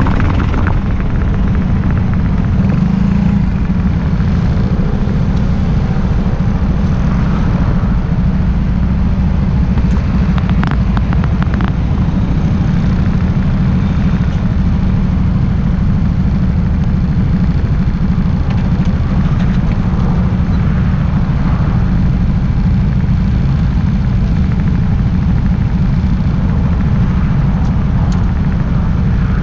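Small scooter engine idling with a steady low drone, picked up through the camera's makeshift mount on the scooter itself, so the engine's vibration comes through strongly.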